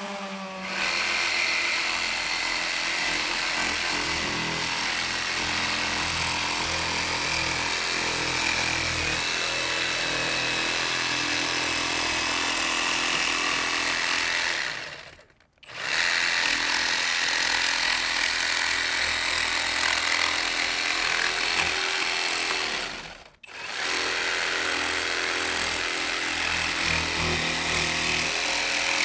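A power tool running steadily under load. It stops briefly twice, once about halfway through and again a few seconds later, then starts again each time.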